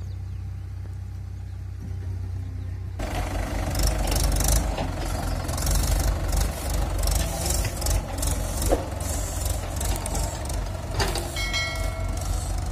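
Diesel tractor engines working under load, hauling loaded trailers over soft ploughed soil. A Sonalika's steady hum gives way, about three seconds in, to a Mahindra that is louder and rougher, with crackly noise over it. A brief high squeal comes near the end.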